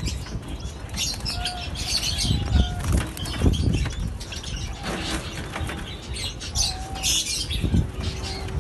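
Small birds fluttering and flapping their wings in repeated bursts, with a few short, soft pitched calls.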